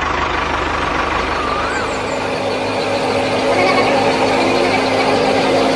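Engine running steadily at a constant speed, with a steady low hum settling in about two seconds in.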